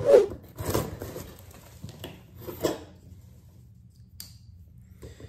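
Spyderco folding knife blade slicing through packing tape on a cardboard box, in three short scraping strokes over the first three seconds, the first the loudest. A single click follows about four seconds in.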